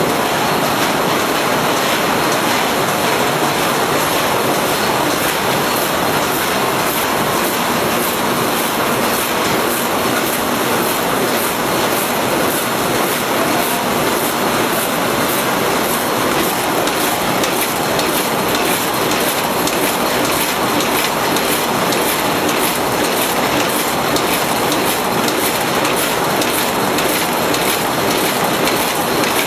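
Corrugated-box flexo printer slotter die-cutter folder-gluer running: a loud, steady mechanical rush with an even, rapid clatter as the sheets feed through the rollers and belts.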